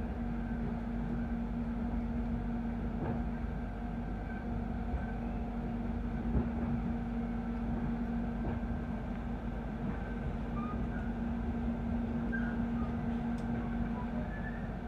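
Interior noise of the Jakarta airport rail link's electric train running at speed: a steady rumble of wheels on track with a constant low hum.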